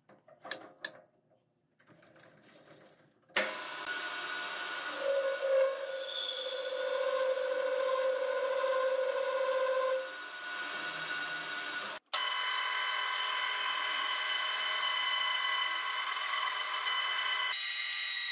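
A few faint clicks as the lathe's carriage is handled, then a small metal lathe starts running about three seconds in, its motor whining steadily as the tool cuts the spinning metal part, with a stronger tone standing out for a few seconds midway. After a sudden break it runs on, and near the end the sound changes as a grooving tool cuts into the part.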